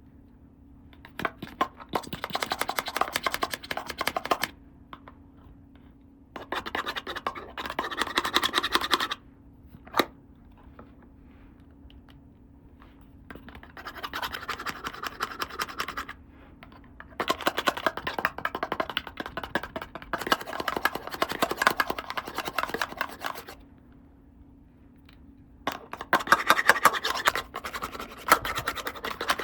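Toy packaging being handled and opened: bursts of dense, rapid scratchy crackling, each a few seconds long, with short pauses between them and a single sharp click about ten seconds in.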